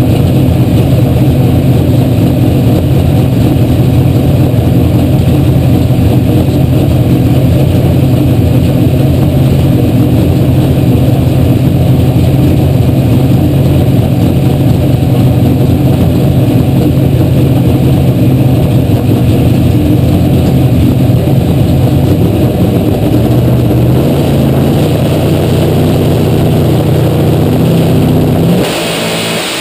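NHRA Pro Stock car's naturally aspirated 500-cubic-inch V8 running steadily at a high idle, heard from inside the car. Late on its pitch drops slightly, and just before the end the sound falls away sharply.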